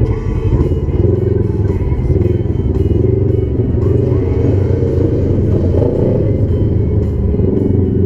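Off-road UTV engine running hard and revving up and down, mixed with background music with guitar.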